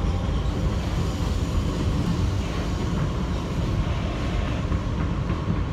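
Kawasaki R160B subway train with Siemens propulsion running along the track, heard from inside the car: a steady low rumble of wheels on rail and running gear.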